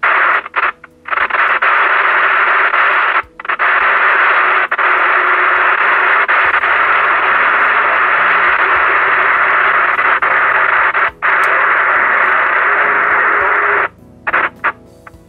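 President Lincoln CB radio's speaker putting out a loud, steady rush of noise and interference from strong city signals picked up by a rooftop base antenna, with a few brief dropouts. Near the end the squelch is turned up and the noise breaks into short choppy bursts: the automatic squelch does not cope with such strong signals.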